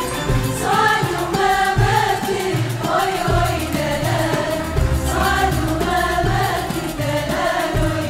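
Women's choir and a female soloist singing an Arabic song, accompanied by a traditional Arabic ensemble with a frame drum keeping a steady beat.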